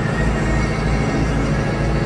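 Mahindra tractor's diesel engine running steadily, with music playing over it.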